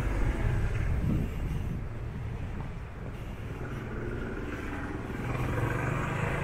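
Road traffic: a car passing close, its low engine and tyre rumble fading away in the first second and a half, then another vehicle approaching near the end.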